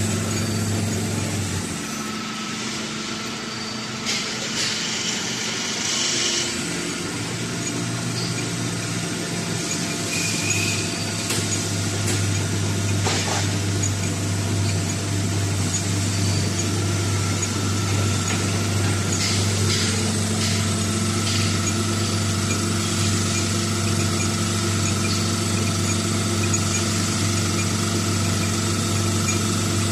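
OMP 400 cc hydraulic orbital motor running on a test bench driven by its hydraulic power unit: a steady mechanical hum with a faint whine. The hum dips for a few seconds near the start, then settles and holds steady, with a few light clicks.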